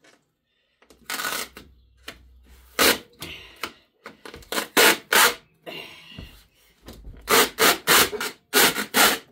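Double-stick adhesive pads being peeled up off a plastic cat-wheel track, heard as a string of short, irregular ripping and rubbing strokes that starts about a second in and comes faster and louder in the second half.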